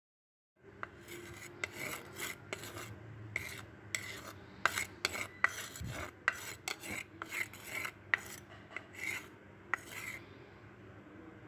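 Wooden spatula scraping and stirring vegetables in a clay pot, an irregular run of rasping strokes about two a second that stops near the end.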